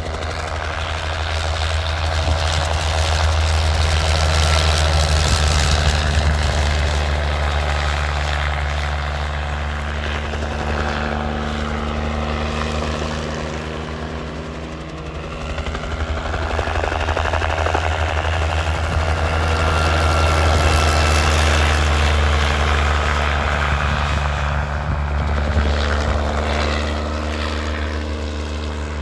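Bell 47 helicopter flying low past, its rotor and piston engine running steadily. The sound swells and fades twice as it makes two low passes, loudest a few seconds in and again past the middle.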